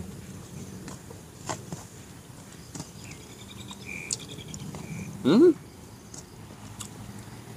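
An insect chirping in short, rapid pulses from about three to five seconds in, over faint mouth clicks from someone eating with his hands. About five seconds in comes a short rising "mm" from the eater, the loudest sound.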